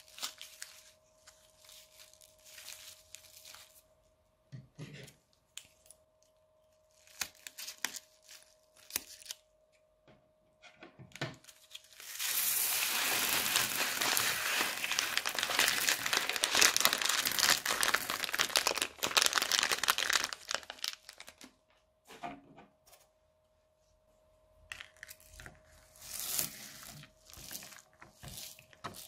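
A plastic piping bag of beads and foam balls crinkling as it is handled, then for about eight seconds a dense rattling pour of beads onto slime in a glass dish. Near the end, a spatula stirs the beaded slime with soft crunches and squishes.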